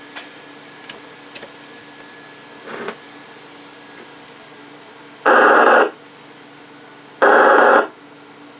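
Two short bursts of radio static from a 2-meter FM amateur radio receiver, each about half a second long and about two seconds apart, as the squelch briefly opens on the repeater channel. A few faint clicks come before them over a low steady hum.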